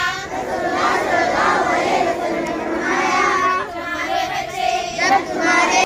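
A crowd of schoolchildren's voices, many at once and overlapping, loud throughout.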